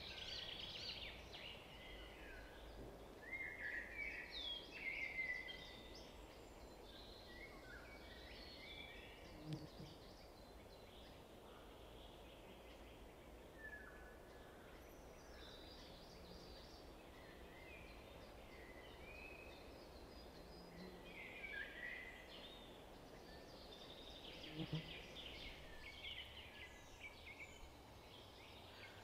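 Small birds chirping and twittering faintly in short, scattered calls over a low background hiss, with two soft knocks.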